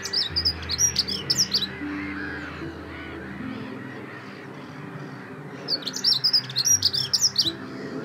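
Dunnock singing: two quick, high, jingling warbles of about two seconds each, the second a little past halfway, over soft background music.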